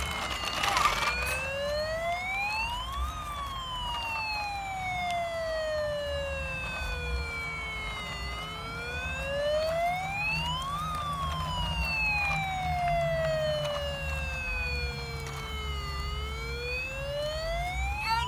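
Toy fire truck's electronic siren wailing in a slow cycle: the tone climbs for two or three seconds, then sinks for about five, peaking roughly every eight seconds, over a steady low hum. A short burst of noise comes about a second in.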